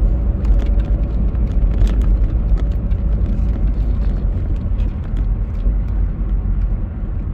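Steady low rumble of a car driving on an asphalt road, heard from inside the cabin, with scattered faint clicks.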